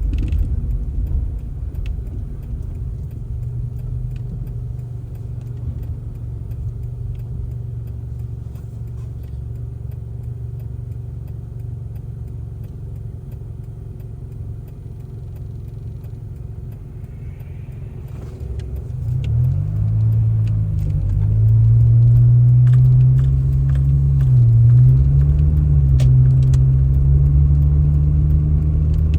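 A vehicle engine runs with a low, steady rumble. About two-thirds of the way in it grows louder and its pitch rises and wavers, as if the engine is taking on load or being revved.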